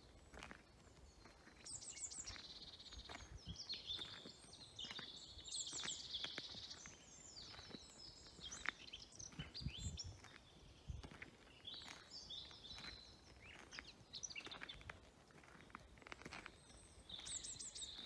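Faint birdsong from several small birds: repeated chirps, quick trills and short falling whistles, coming and going with brief pauses.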